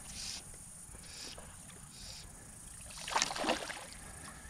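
Hooked bass splashing at the surface beside a kayak: a short burst of water noise a little after three seconds in, the loudest sound. Before it come a few short hissing swishes of fly line being stripped in.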